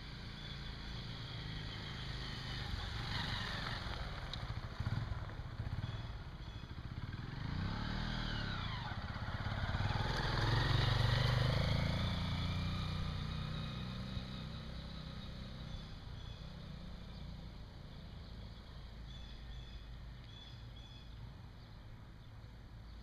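A 2024 Honda XR150L's single-cylinder engine as the motorcycle rides up, passes close by and pulls away. It grows louder to a peak about ten to twelve seconds in, its pitch sweeping up and down as it goes by, then fades into the distance.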